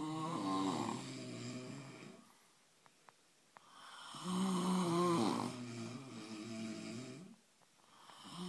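Men snoring in their sleep: one snore fades out within the first two seconds, a long snore follows from about three and a half seconds in, and another begins near the end.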